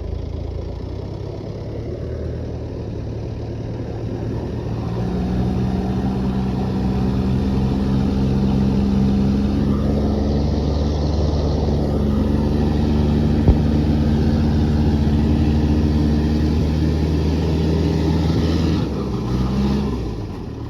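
Vehicle engine pulling steadily under load at fairly constant revs, growing louder a few seconds in and easing off near the end, as when driving through rough off-road ground.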